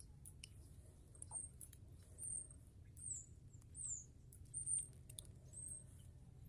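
Faint, very high-pitched bird chirps: about seven short peeps, several sliding down in pitch, with scattered light clicks.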